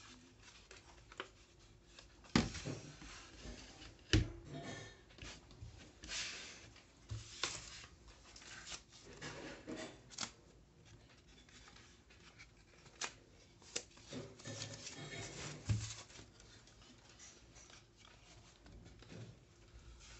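Hands handling wooden wall shelf pieces and their foam packing sheets: rustling and rubbing of the wrapping, broken by a few sharp wooden knocks and clicks as the pieces are moved and set against each other.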